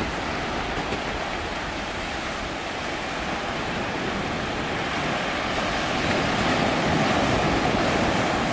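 Small waves breaking and washing up a sandy beach in a steady rush of surf, swelling a little louder about six seconds in.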